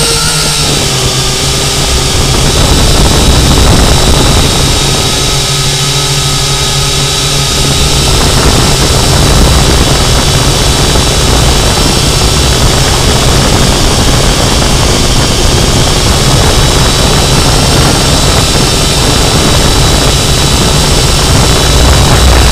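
Syma X8C quadcopter's motors and propellers whining steadily in flight, heard from the camera mounted on the drone, over a strong low wind rumble on the microphone.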